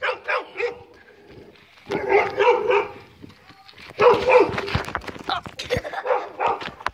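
Dogs barking in several bursts of quick barks.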